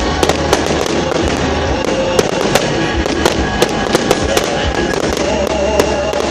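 Fireworks display: sharp bangs and crackles from bursting shells at irregular intervals, several a second at times.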